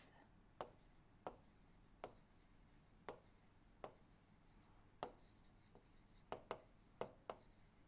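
Faint, irregular taps and soft scratches of a stylus writing on a tablet screen.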